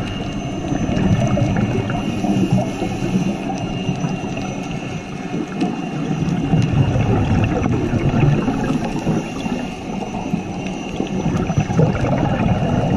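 Underwater sound picked up by a GoPro in its waterproof housing: a steady, muffled rumble and gurgle of water, rising and falling unevenly, with a faint high whine throughout.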